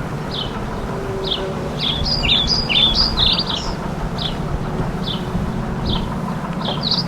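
A songbird calling with short downward chirps about every half second, broken twice by a quick jumble of warbled notes, over a steady low hum.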